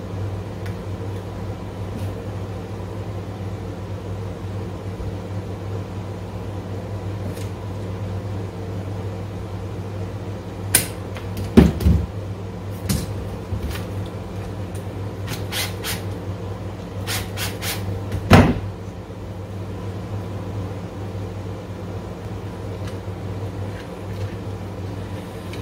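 Steady low hum with a scattered run of sharp clicks and knocks around the middle, two of them louder: small parts of a power cord's plug being handled while its wires are threaded through the rubber boot.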